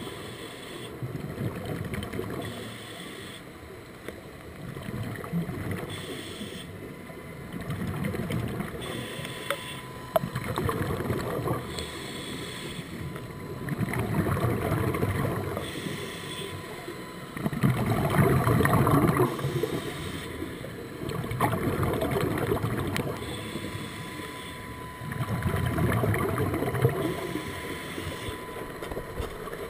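A scuba diver's breathing through a regulator, heard underwater: bubbling rushes of exhaled air swell up every three to four seconds, with quieter stretches between breaths.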